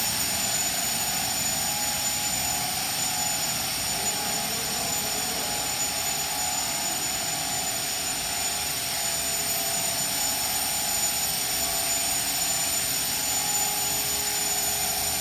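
Mikrosan wood-plastic composite deck profile extrusion line running: a steady machine whir with a thin high whine over it.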